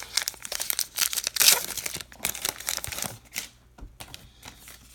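A 2019 Topps Allen & Ginter baseball card pack wrapper being crinkled and torn open, loudest about a second and a half in. After that come quieter light clicks as the cards are slid out.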